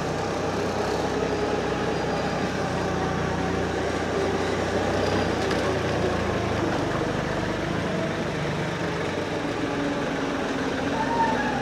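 Preet 26 hp mini tractor's diesel engine running steadily while the tractor is driven.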